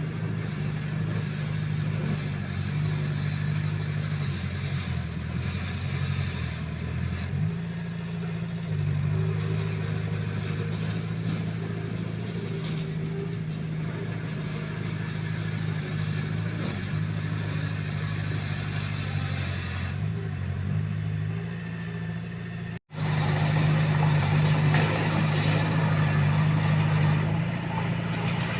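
Komatsu D21A bulldozer's diesel engine running steadily under work. Its note sags lower for a few seconds about four seconds in, then picks back up. A momentary dropout comes near the end, after which it is a little louder.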